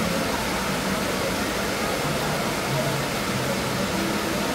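Water park ambience: a steady rushing hiss of water with distant, indistinct voices of people.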